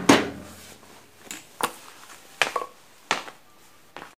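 Metal engine parts and tools handled on a workbench. A loud knock comes right at the start, then a handful of short, sharp clicks and taps follow through the rest.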